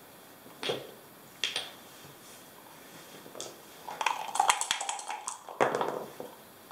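Backgammon checkers clacking as they are moved on the board, a few single clicks, then from about four seconds in dice rattling in a dice cup and tumbling onto the board.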